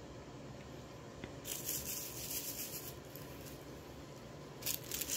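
Cat grooming itself, a quick rhythmic rasping of tongue and paw on fur. It comes in two spells, one about a second and a half in and a stronger one near the end.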